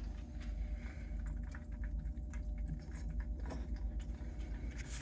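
Steady low hum of a small circulating pump, with faint irregular ticks and patters of water dripping and bubbling down a glass sight tube.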